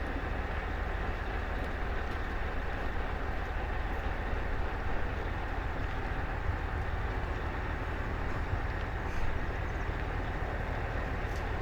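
Steady low engine drone of a motorboat running on the water.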